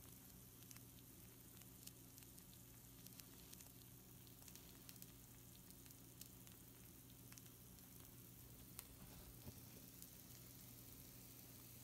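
Pizza rolls faintly sizzling on a baking sheet, with many small scattered crackles and pops.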